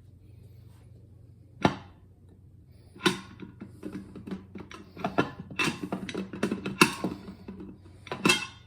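A sharp knock, then a run of clicks, rattles and knocks from handling the loosened, drilled-out lock and metal parts of the vending machine.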